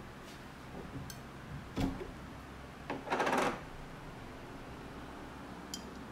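Glass jar of pasta sauce being handled and its screw lid twisted off: a heavy thump about two seconds in, then a short scraping rasp of the lid turning on the glass about a second later, with a few light clicks around them and a small clink near the end.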